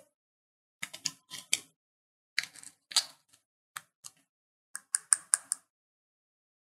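Fingernails tapping and clicking on a miniature plastic toy soda can as it is handled, in several short runs of quick clicks that stop a little before the end.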